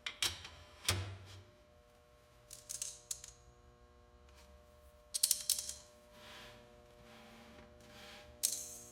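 Metal clicks and clatter from shop tools and steel pieces being worked, in short groups a few seconds apart over a faint steady hum.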